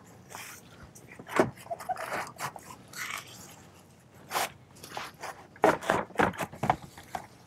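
Plastic cooling-fan shroud with its fans being worked down out of a VW MK5 GTI, scraping and knocking against the surrounding parts. Scattered clicks and knocks, with a quick cluster of them near the end.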